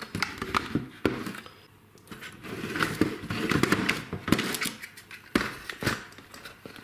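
Handling of fused DC isolators and their packaging: a few sharp clicks and knocks of plastic casings with stretches of rustling in between.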